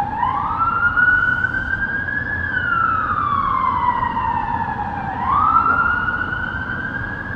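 Emergency vehicle siren wailing: a slow rise in pitch, a longer fall, then a second rise about five seconds in, over a low hum of city traffic.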